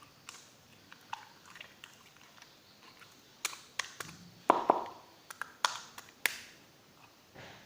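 Clear jelly slime squeezed and stretched by hand, giving irregular sharp clicks and wet pops, thickest and loudest a little past the middle.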